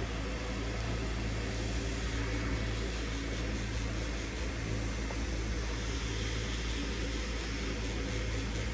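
Tattoo machine buzzing steadily as the artist works the needle into skin, a constant low hum over a light hiss.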